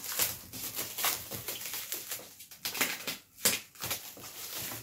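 Clear plastic wrapping crinkling and crackling as it is handled and pulled off a cardboard box, with a sharper crackle about three and a half seconds in.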